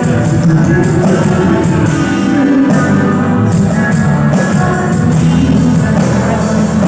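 Live rock band playing with electric guitar, loud and continuous, a voice singing along at times.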